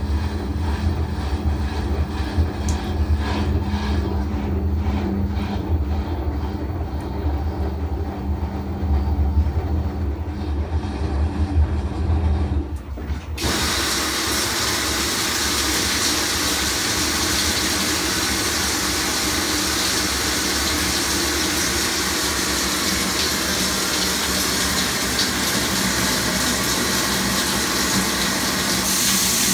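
LG WT7800 top-load washer spinning its drum with a low hum for the tub clean cycle's first spin, cutting off about thirteen seconds in. Water then pours steadily into the drum as the second fill begins.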